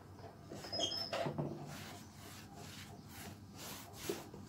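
A cotton cloth rubbing and wiping the underside of a sewing machine around the rotary hook in repeated soft strokes, cleaning dirt out of the mechanism.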